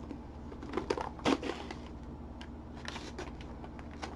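Snack packaging being handled and opened: plastic crinkling and crackling in short irregular clicks and rustles, busiest about a second in.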